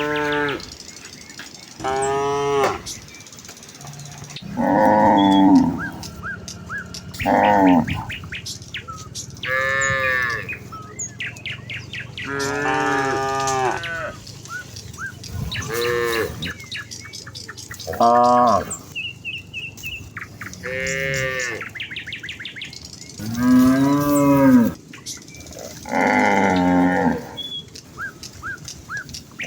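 Herd of cows mooing to each other in turn, about a dozen long calls of a second or so each, some higher and some deeper.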